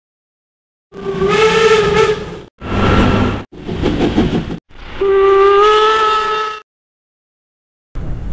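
Steam whistle of class 86 tank locomotive 86 1333 sounding two long steady blasts, with rushing steam and exhaust noise in between. Each piece starts and stops abruptly.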